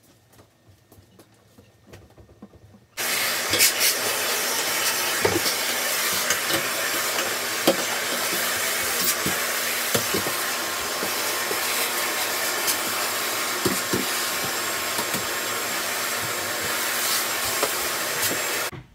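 Canister vacuum cleaner switched on about three seconds in, running steadily with scattered clicks and knocks, then switched off just before the end.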